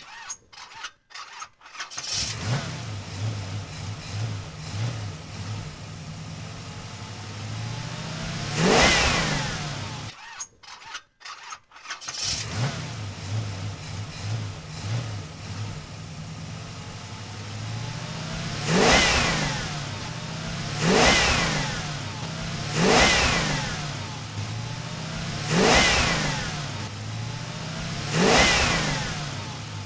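Car engine started, cranking briefly before it catches and settles into an idle, then revved once. The start is heard again about ten seconds in, followed by five short revs about two seconds apart, each rising and falling in pitch.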